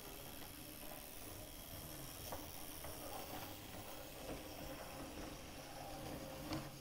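OO gauge model locomotive running slowly on its track while shunting: a faint, steady motor whirr with a few light clicks of the wheels over the track, the sharpest near the end.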